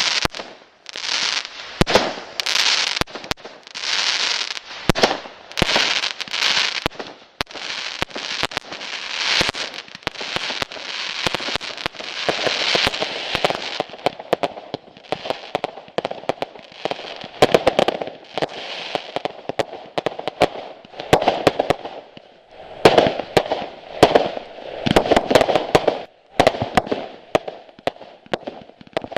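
Fireworks going off one after another: repeated hissing rushes about every second, higher-pitched in the first half and lower later on, punctuated by many sharp cracks and bangs.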